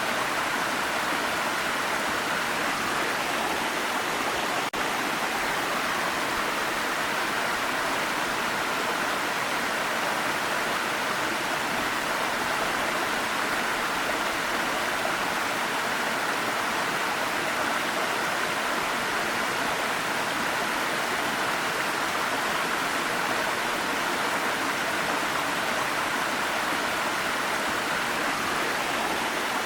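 Waterfall: a steady, even rush of falling water, with a momentary dip about five seconds in.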